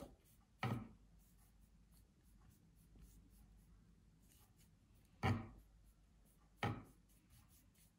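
Large brush working oil paint into a canvas: a faint rubbing of bristles over the painted surface, with three short, louder touches, about a second in, about five seconds in and a second and a half later.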